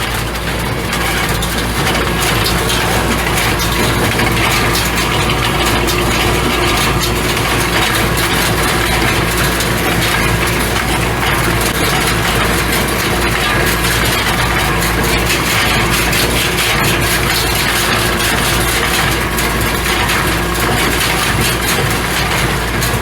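A tractor engine running steadily while pulling a working hay baler, with a constant mechanical clatter from the baler's moving parts.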